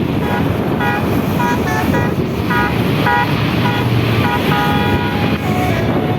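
Bus telolet horn, a basuri multi-tone air horn, playing a quick melody of short blaring notes that ends on two longer held notes, over steady engine and traffic rumble.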